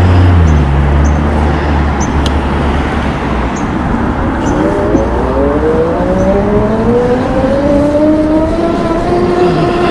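Riding noise with wind rushing over the microphone. From about halfway in, the Super73 Z1 e-bike's 500-watt motor whines, rising slowly in pitch as it picks up speed under load and then holding steady near the end.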